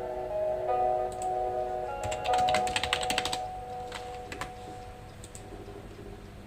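Computer keyboard typing: a quick run of keystrokes about two seconds in, then a few scattered taps, over soft background music with held notes.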